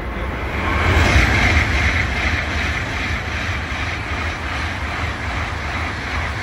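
Tokaido Shinkansen bullet train passing through a station at speed: a steady rushing roar with a deep rumble underneath, swelling about a second in and holding.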